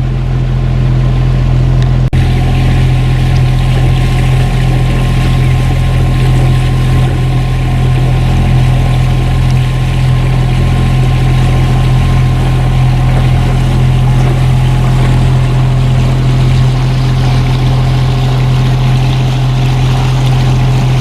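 Sailing yacht's engine running steadily at cruising revs under way, a loud constant drone with a rush of water and wind over it: the boat is motor sailing in light wind.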